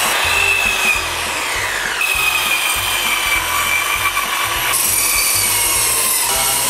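Handheld powered circular butcher's saw cutting through pork ribs: a loud whining grind from the toothed blade. The whine drops in pitch several times as the blade bites into bone and meat.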